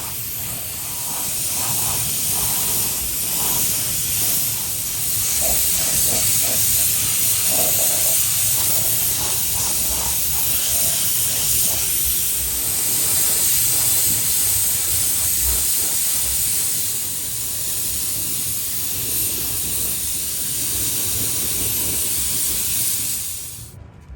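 Steady, loud hiss of a pressurized spray, cutting off suddenly near the end.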